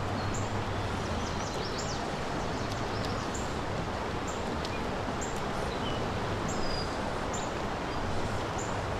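Steady rush of a flowing creek, with many faint, short, high bird chirps scattered through it.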